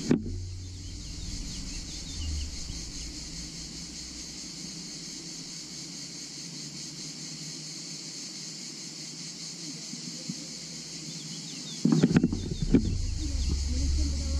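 Steady high-pitched buzzing of cicadas in the roadside trees. About twelve seconds in, sudden knocks and low rumble hit the camera's microphone, and a low wind rumble follows.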